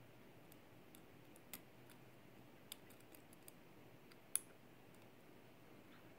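Faint, scattered clicks of a lock pick and tension tool working the pins of a Yale pin-tumbler cylinder lock, with one louder click a little past halfway.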